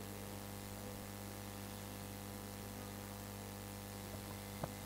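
Steady electrical mains hum with a low hiss, with one faint click near the end.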